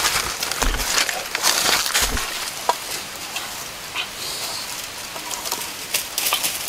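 Bare feet stepping through dry leaves, grass and brush, crackling and snapping. The crackling is dense for the first couple of seconds, then thins to scattered rustles and clicks.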